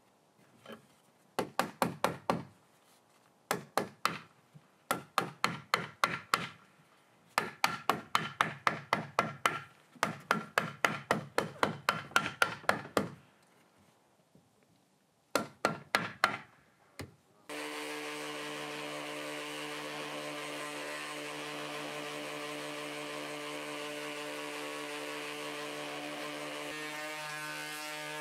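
Runs of sharp wooden knocks, several a second, as a new timber strip is fitted onto a boat's wooden gunwale. About two-thirds of the way through these give way to a Stanley cordless random orbital sander running steadily on a plank of wood.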